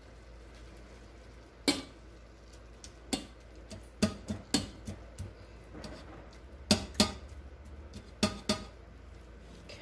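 Cooking utensil knocking and scraping against a frying pan while potatoes are stirred in it: about ten sharp clinks at uneven intervals.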